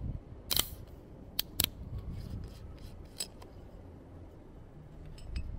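A few short, sharp clicks over a low steady background: the loudest about half a second in, two close together around a second and a half, and fainter ticks later.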